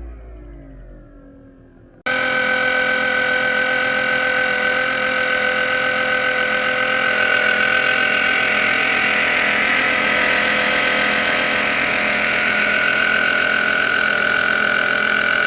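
2012 Fiat 500 engine running with a loud, steady whine of several fixed tones. The whine cuts in suddenly about two seconds in, after a rev dies away. It is the whine that persisted after a new belt, which the owner suspects comes from the alternator or a pulley.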